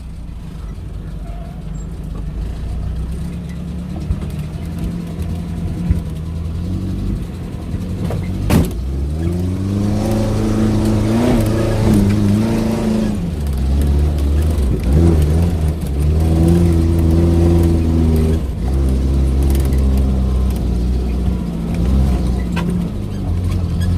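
Suzuki Jimny engine labouring in low gear on a wet off-road track, its revs rising about nine seconds in, then easing and rising again several times as it pulls through. A single sharp knock is heard just before the revs climb.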